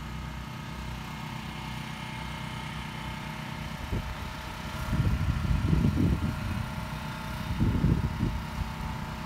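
An engine running steadily at idle, with wind buffeting the microphone in two loud gusts, about five seconds in and again near the end.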